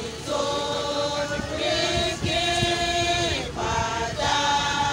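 A women's choir singing a hymn together, holding long notes and moving from note to note, with a short breath break about halfway through.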